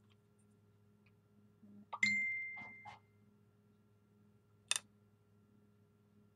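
A small metal object striking the tabletop about two seconds in, giving a single bright ding that rings for about a second, followed a couple of seconds later by one short, sharp click.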